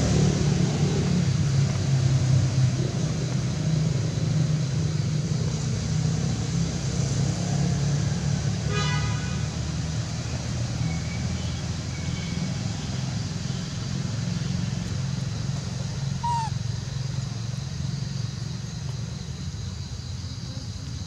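A motor engine's steady low drone that slowly fades, with a short buzzy horn-like toot about nine seconds in and a brief high falling chirp near sixteen seconds.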